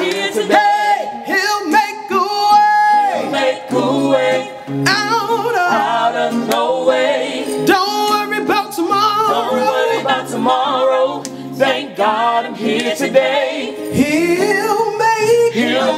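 Gospel group singing live: a male lead voice with backing voices, over acoustic guitar chords.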